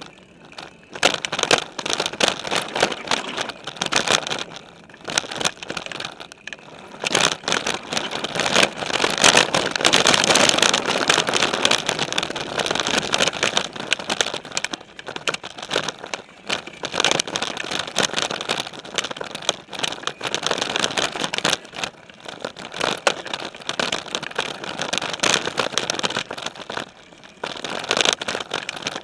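Specialized Stumpjumper mountain bike riding fast over dirt singletrack strewn with dry leaves: tyres crunching and the bike clattering and rattling over bumps, heard from a camera mounted on the frame. The noise swells and eases with the terrain, loudest about eight to thirteen seconds in.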